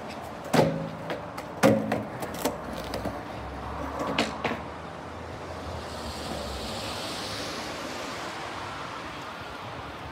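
Skateboard on brick paving: a sharp pop about half a second in, then the loudest clack from the board coming down a second later, with a few smaller knocks. The wheels then rumble over the paving for a few seconds and fade out.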